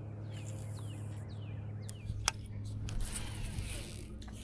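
Small birds calling in a run of short, falling chirps over a steady low hum, with one sharp click a little past two seconds in.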